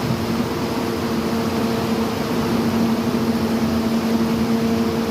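Heavy rain falling steadily, with a steady low hum from some machine underneath it.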